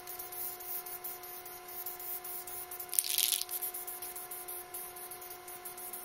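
Aerosol spray paint can hissing in short bursts as black paint is sprayed onto a bare aluminum plate, with one stronger, fuller burst about three seconds in.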